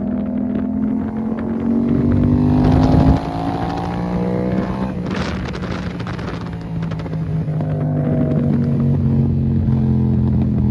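Yamaha MT-07's parallel-twin engine running under throttle: the pitch climbs, then drops suddenly about three seconds in as the throttle shuts or a gear changes, and climbs again near the end.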